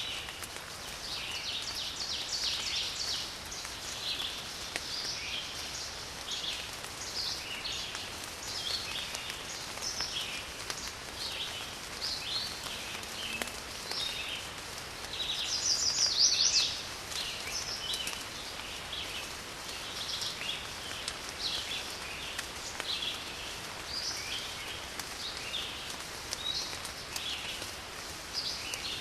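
Steady rain hissing under many birds chirping and calling throughout, with one louder, denser burst of birdsong a little past halfway.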